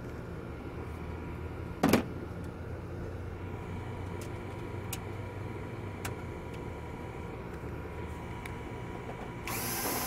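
Steady mechanical hum of rooftop HVAC equipment running. One sharp click comes about two seconds in, and a brief rush of noise comes near the end.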